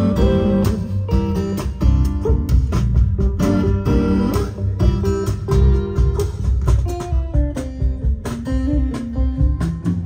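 Recorded guitar music, plucked and strummed notes over a strong, steady bass, played back through Wilson Audio floor-standing loudspeakers driven by dCS digital source and D'Agostino amplification.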